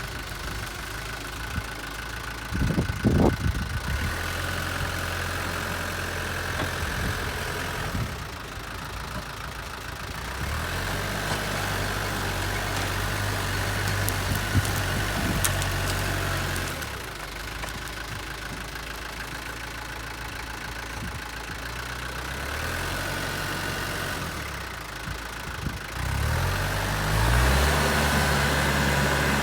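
Mini excavator's engine running while it works, its note dropping and rising several times as the load changes, with a steady high whine over it. There are a few sharp knocks, and it runs louder near the end.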